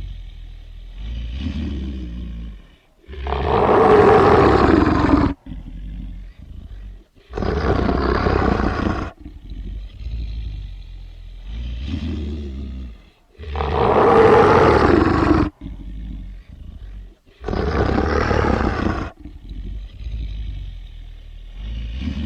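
Werewolf creature sound effect: low growling broken by four loud roars, each about two seconds long, the growl-and-roar sequence repeating about every ten seconds.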